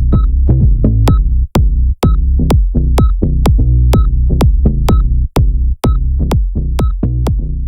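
Electronic background music with a steady drum-machine beat, about two hits a second, over heavy bass.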